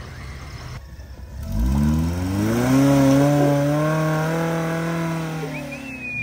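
Vehicle engine accelerating: its pitch climbs over about a second, holds steady for a few seconds, then eases off near the end.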